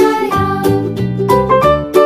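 Upbeat children's background music with plucked-string notes over a steady beat.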